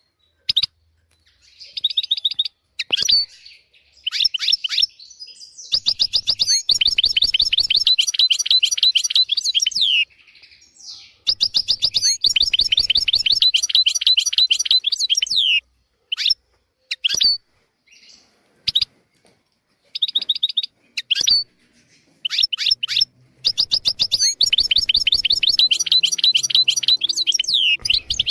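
European goldfinch singing: phrases of quick twittering notes running into fast trills, separated by short pauses. The longest trilled runs come about six, twelve and twenty-four seconds in.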